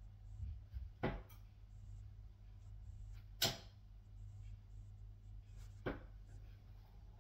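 Three darts thudding into a Winmau bristle dartboard, about two and a half seconds apart, each a short sharp hit; the second is the loudest.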